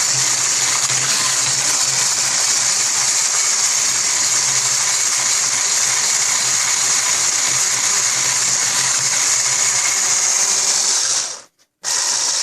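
Electric mixer running steadily as it whips sour cream with powdered sugar into a cream, with a low motor hum under a high whirring hiss. It cuts out briefly near the end and starts again.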